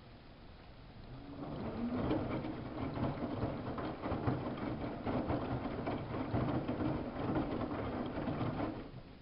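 Samsung front-loading washing machine turning its drum during a wash cycle: a motor hum that comes in about a second in with a slight rise in pitch, over water and laundry splashing inside the drum. It stops shortly before the end.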